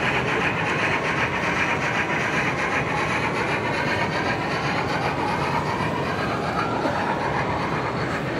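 Model passenger train running along a layout's track: a steady rolling clatter with a faint whine that rises in pitch near the end.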